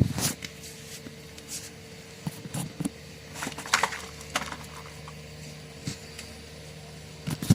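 Scattered light clicks and small handling noises, the loudest about three and a half to four and a half seconds in, over a faint steady hum.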